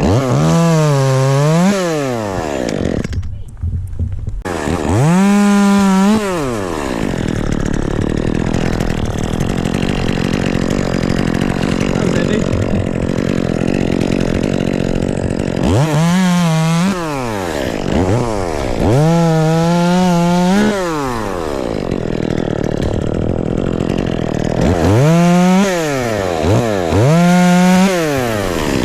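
Two-stroke chainsaw running, revved up to full speed and back down about six times, with lower running between the revs, as wood is cut.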